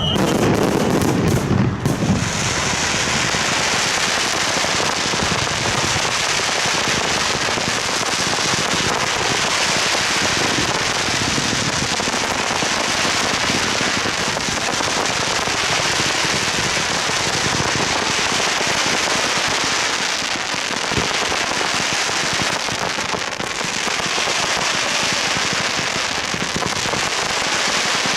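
Fireworks going off. A low boom comes in the first couple of seconds, then a continuous dense crackling hiss of countless small bursts.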